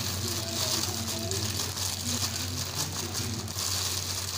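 Clear plastic bag crinkling and rustling as breaded chicken chunks are shaken out of it onto a plastic cutting board, over a steady hiss.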